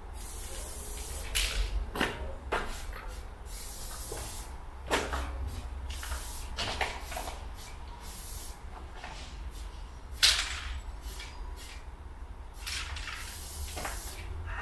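Aerosol spray-paint can being sprayed in short hissing bursts, stopping and starting every second or two, with a few sharp clicks and knocks between them.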